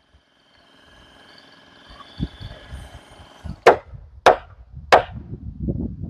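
Three sharp strikes on rough-sawn lumber framing, a little over half a second apart, after a low knock and the shuffling and creaking of timber being handled.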